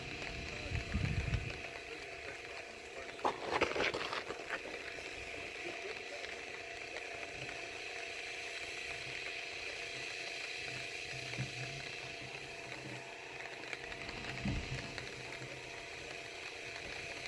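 Fishing reel clicking and ratcheting as the rod is worked. A loud short rustle or knock comes about three and a half seconds in.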